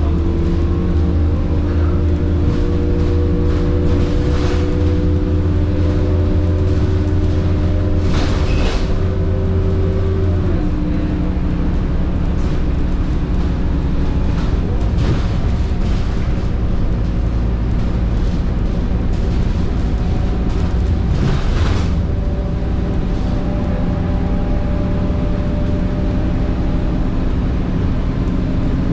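Scania K230UB bus under way, heard from inside the cabin: the Scania DC9 engine's low drone with the high-pitched whine of the ZF Ecomat 6HP504C six-speed automatic gearbox in several steady tones. The whine and the heaviest engine drone fall away about ten seconds in and a lower whine returns in the second half, with a few short hisses in between.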